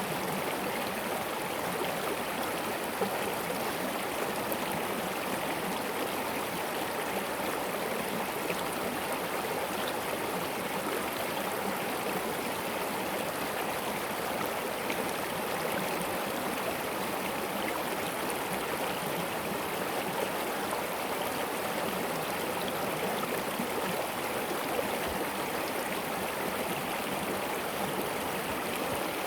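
Mountain stream of glacier meltwater rushing and splashing over stones, a steady, even rush of water.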